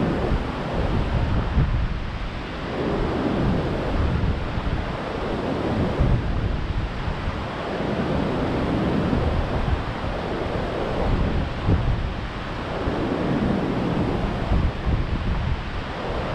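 Gulf surf stirred up by a tropical storm, breaking in rows on the beach and swelling and easing every few seconds, with wind blowing across the microphone.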